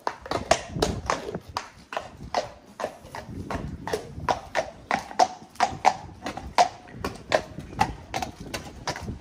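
Hooves of a lightweight cob walking on a hard yard: a steady clip-clop of about three sharp strikes a second.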